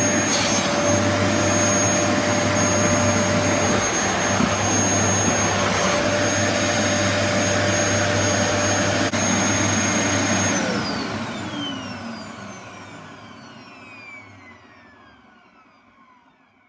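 Dyson DC33 upright vacuum cleaner's motor running steadily with a high whine. About ten seconds in it is switched off and the motor winds down, the whine falling in pitch as it fades away.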